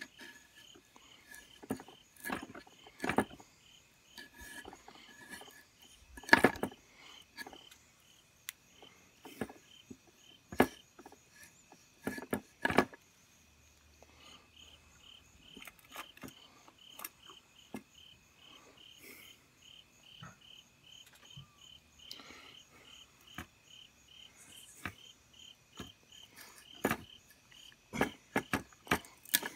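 Crickets chirping in a steady, pulsing chorus, broken by sharp clicks and knocks of fatwood (resin-rich pine) sticks being cut and handled, loudest about six seconds in and in a quick cluster near the end.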